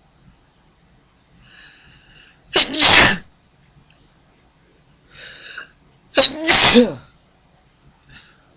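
A person sneezes twice, about three and a half seconds apart. Each loud sneeze is preceded by a shorter, quieter gasping intake of breath.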